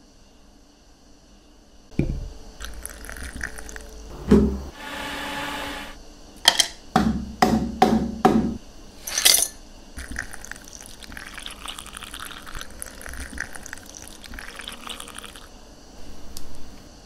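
Ice dropped into a drinking glass: a few single knocks, then a quick run of about six clinks. After that comes a steady pour of liquid over the ice lasting about five seconds.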